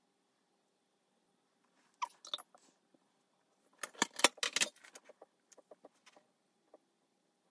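Painting supplies being moved about on a tabletop: plastic watercolour palettes and a case knocking and clattering. A short run of clicks about two seconds in, a louder cluster of clatters around four seconds, then a few light ticks.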